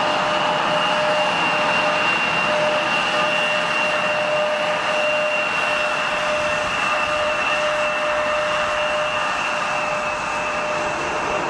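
Boeing 787's turbofan engines at taxi power, a steady high whine and a lower hum over a loud rushing noise; the whine sinks slightly near the end as the airliner rolls past.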